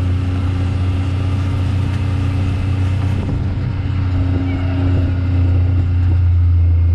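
Pickup truck engine running steadily at low speed, heard from the open truck bed: a steady low drone that gets a little louder near the end.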